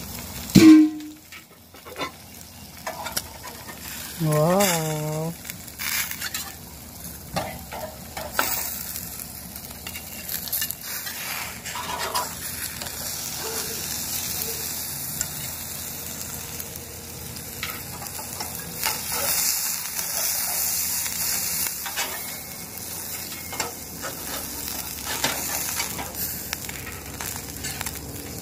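Cheeseburger patties sizzling over a charcoal kettle grill, with a metal spatula scraping across the grill grate as they are lifted off. A sharp knock about half a second in.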